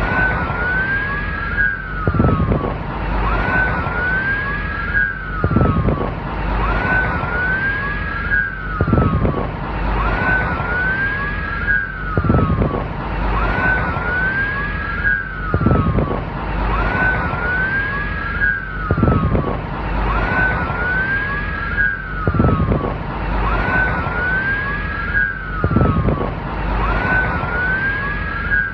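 Police car siren wailing, its pitch sweeping up and down in overlapping arcs over steady road noise. The same few-second stretch repeats about every three and a half seconds, as in a loop.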